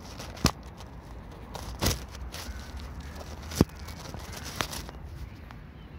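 Four scattered sharp clicks and crunches, as of gravel stones knocking, over a steady low rumble.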